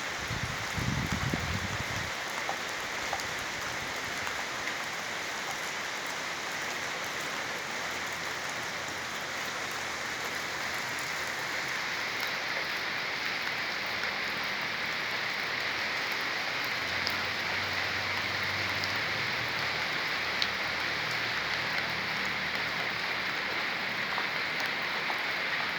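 Steady rain falling and pattering on surfaces, an even rushing hiss. A brief low rumble comes about a second in.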